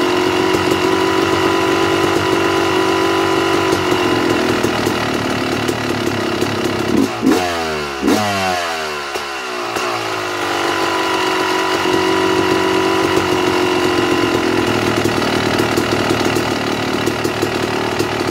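A 2009 Yamaha YZ250's two-stroke single-cylinder engine idling a little higher than normal, its pilot air screw turned out too far so that it sucks extra air through the carburettor. About seven seconds in, two quick throttle blips rise and fall back, and the idle settles and then picks up again.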